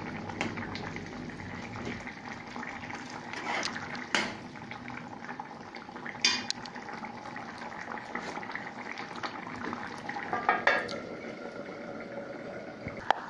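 Curry chicken neck and butter beans simmering in a pot, bubbling steadily, with a few sharp clinks of a utensil against the pot.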